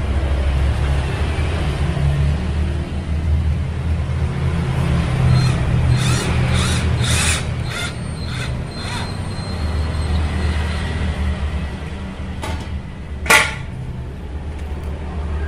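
Cordless drill driving a bolt into an end block, run in a series of short bursts a little over two a second, followed by one sharp click near the end. A steady low hum sits underneath.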